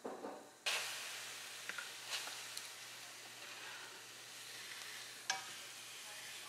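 A whole red bell pepper sizzling on a hot ridged grill pan as it is turned with wooden chopsticks. The sizzle starts suddenly under a second in and slowly eases off, with a few light clicks of the chopsticks against the pepper and pan.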